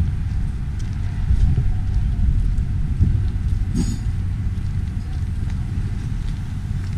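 Steady low rumble of wind buffeting the action camera's microphone, with one brief sharp sound about halfway through.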